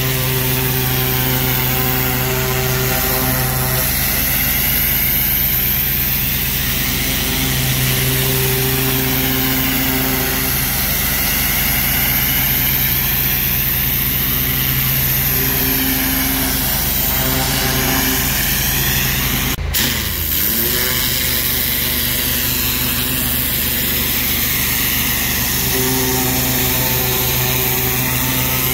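Pressure washer running steadily, its wand spraying a hissing jet of water onto brick. The sound cuts out for an instant about two-thirds of the way through.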